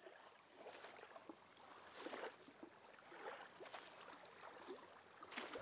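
Faint small waves lapping irregularly at a sandy lakeshore.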